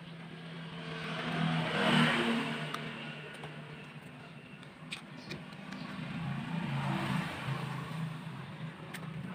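A small motor whirring, getting louder and softer twice.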